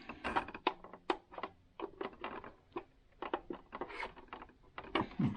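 Irregular clicks and taps of plastic and metal parts on a partly disassembled Singer sewing machine being moved and handled by hand, with no motor running.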